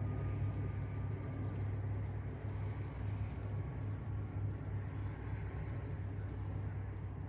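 A steady low hum or rumble with faint high chirps every couple of seconds.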